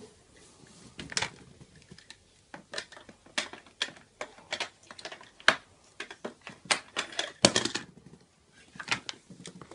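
Irregular plastic clicks, taps and clatters as parts of a plastic toy ramp tower are handled and fitted together, with a louder cluster of knocks about seven and a half seconds in.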